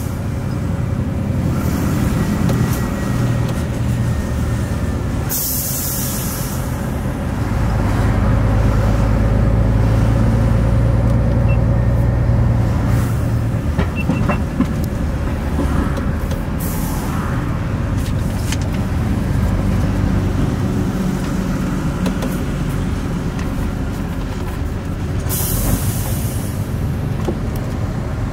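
Truck diesel engine running at low speed, heard from inside the cab, its rumble swelling for a few seconds about a third of the way in. Short bursts of air-brake hiss cut in twice, once early and once near the end.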